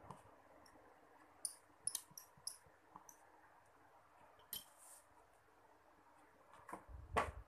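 Small sharp clicks and ticks of a precision screwdriver and screws on a smartphone's plastic back frame, a cluster of them about one and a half to three seconds in. Near the end comes a louder knock as the handset is picked up and handled.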